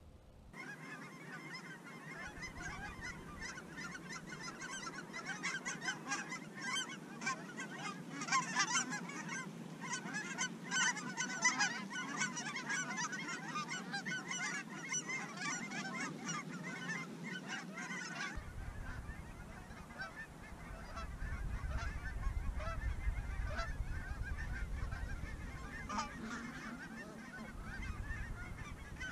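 A large flock of wild geese honking overhead, many calls overlapping, busiest in the first half. About two-thirds of the way through the sound changes abruptly: the calling thins and a low rumble comes in beneath it.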